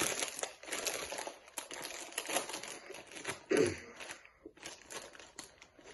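A Miss Vickie's sea salt and vinegar chip bag crinkling and crackling as it is opened and handled. The sound is dense at first and thins to scattered crackles, with one short louder sound about three and a half seconds in.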